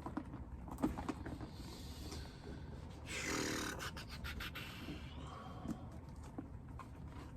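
Soft handling noises: scattered light clicks and rustles, with a breathy rush of noise about three seconds in.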